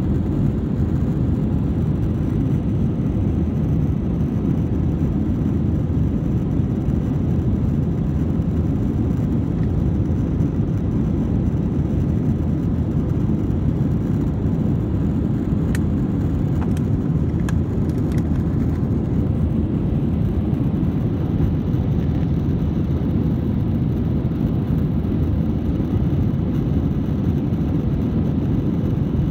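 Steady airliner cabin noise during the climb-out: an even low rumble of engines and rushing air, heard from inside the cabin.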